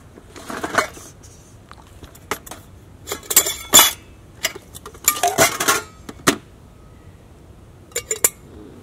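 Camp dishes and utensils clinking and clattering as they are handled, in irregular clusters of sharp knocks, loudest near the middle.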